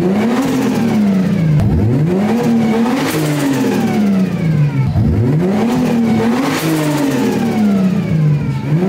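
Turbocharged Toyota 2JZ-GE 3.0-litre straight-six being revved repeatedly, its pitch rising and falling about five times, with a falling turbo whistle as each rev drops back.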